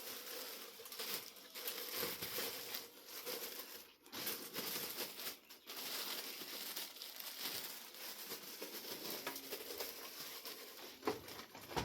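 A bag crinkling and rustling, on and off, as a ceiling fan light kit is wrapped up and put into it.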